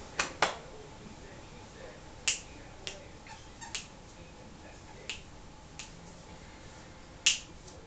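A squeaky fish toy squeaking in short, sharp bursts as a dog bites down on it, about seven times at irregular intervals: two in quick succession at the start, the loudest near the end.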